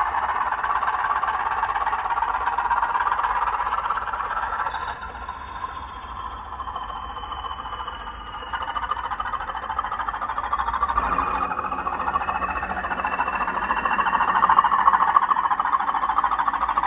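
OO gauge model train of Accurascale HAA hopper wagons running along the track, with a continuous wheel-on-rail rattle and a thin high whine that slowly shifts in pitch. It is quieter for a few seconds in the middle and loudest near the end.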